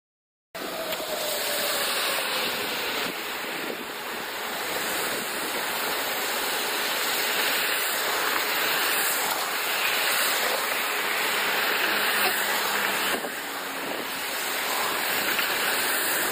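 Strong storm wind under a tornado-bearing cloud, a steady rushing that cuts in abruptly a moment in and eases slightly about 13 seconds in.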